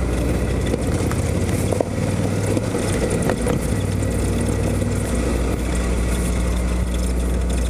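Ducati Scrambler Icon's air-cooled L-twin engine running steadily, with a steady rushing noise over it.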